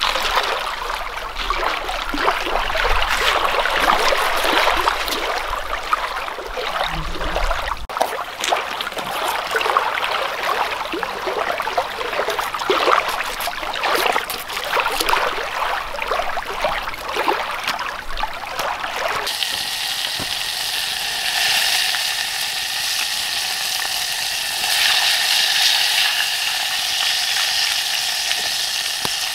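Small waves lapping at a rocky lakeshore, then, from about two-thirds of the way in, fish fillets sizzling steadily in a frying pan over a campfire.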